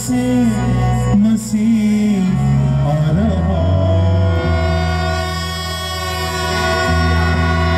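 Music at a prayer meeting: a wavering melody over held chords and a steady bass line.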